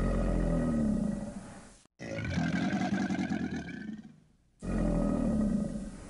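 A large animal roaring: a long low roar, a sudden cut near two seconds, a higher-pitched roaring call, a brief near-silent gap around four seconds, then the same low roar again.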